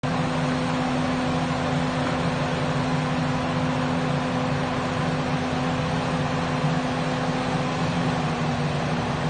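Steady drone of heavy demolition machinery running: a constant hum over an even hiss, with no separate crashes of concrete standing out.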